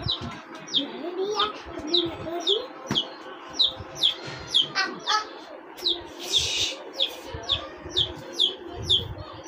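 A baby chick peeping over and over: short, loud, falling peeps about two to three a second. A brief rush of noise cuts in about six seconds in.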